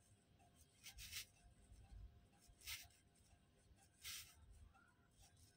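Faint, short scratchy rustles of stiff glitter fabric rubbing on itself, three or four times, as a sewn fabric tube is bunched and turned inside out over a safety pin; the rough glitter lining makes it scratch.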